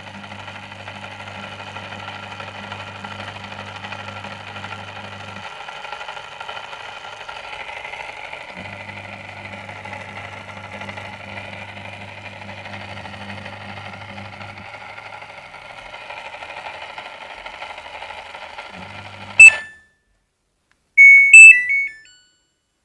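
Washing machine running with its motor humming, the hum cutting in and out in stretches of several seconds. About twenty seconds in it stops with a sharp click, followed by a short run of electronic beeps from the control panel, stepping down in pitch.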